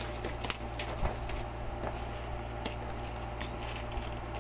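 Black plastic parcel wrapping rustling and crinkling as hands pull it away from a cardboard box, with scattered small clicks and taps, over a steady low hum.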